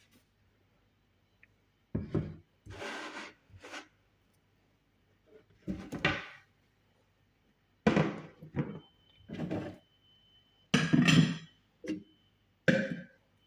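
Kitchenware being handled: about ten short knocks, clunks and scrapes at irregular intervals, starting about two seconds in.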